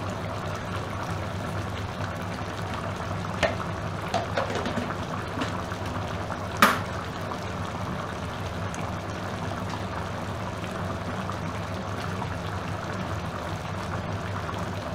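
Chicken pieces in tomato gravy simmering in a large aluminium wok, a steady bubbling, with a few light knocks, the loudest about six and a half seconds in.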